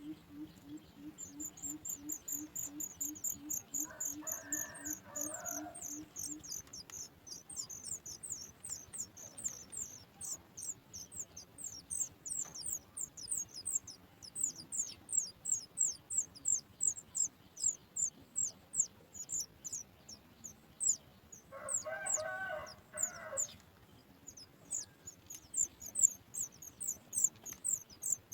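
Baby bird's high, thin begging chirps, repeated quickly at about three to four a second with brief pauses. Twice, about four seconds in and again about 22 seconds in, a lower call of a second or two, like a rooster or hen, rises behind them.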